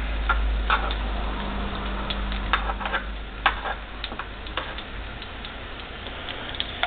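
Plantain slices sizzling in hot oil in a skillet: a steady hiss with frequent irregular pops and crackles.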